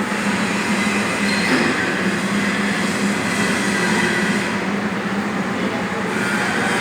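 A hydraulic segment-type surface grinder running steadily, giving a constant low hum under a dense grinding hiss.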